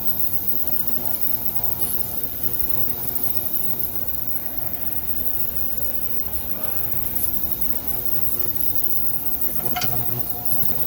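Ultrasonic cleaner running with a steady hum and buzz, cleaning fuel injectors in its tank, with a short tick near the end.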